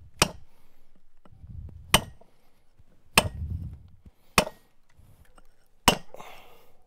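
A hammer striking a hand-forged steel stone drill held against a stone block, five sharp blows about a second and a half apart. The drill is beginning to cut its hole in the stone.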